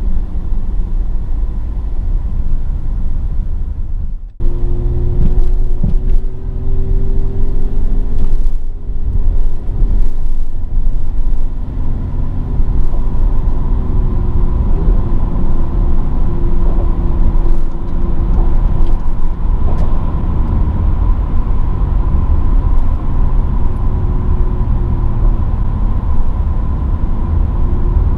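Mercedes-AMG GLE 43's twin-turbo V6 engine and road noise while driving: a steady engine note over a dense low rumble, drifting slightly up and down in pitch. The sound dips out briefly about four seconds in.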